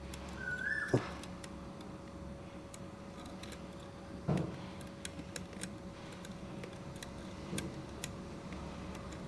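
Faint clicks and light knocks of small parts being handled as a new carbon brush is pressed down into its holder on a mixer grinder motor, with two sharper knocks about a second in and just after four seconds.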